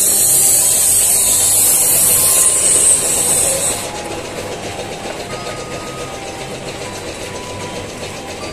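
Air hissing hard from a hose nozzle, cut off sharply about four seconds in, after which a quieter steady noise carries on.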